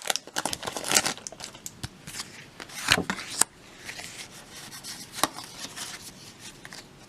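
Foil wrapper of a Pokémon booster pack crinkling and rustling in scattered short crackles as it is handled, torn open and the cards are slid out. The loudest crackles come about three seconds in.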